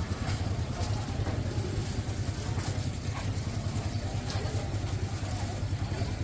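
A steady low rumble with a fast flutter, like a motor or burner running, with a few faint clicks over it.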